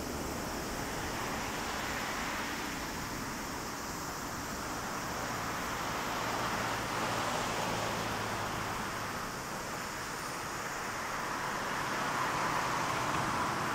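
Boeing 777-300's twin Rolls-Royce Trent 800 jet engines at takeoff thrust during the takeoff roll: a broad, steady jet roar that swells and ebbs and grows louder near the end.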